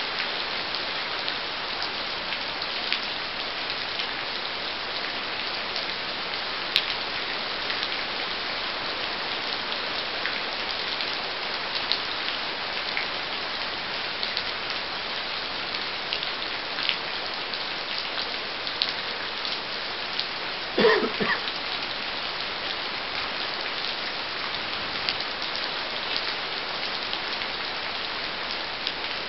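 Steady rain falling, an even hiss with scattered light ticks. A brief low vocal sound stands out about 21 seconds in.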